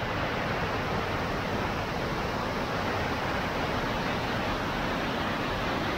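Floodwater rushing steadily: a river in high flood pouring through a weir overflow, an even, unbroken rush with no let-up.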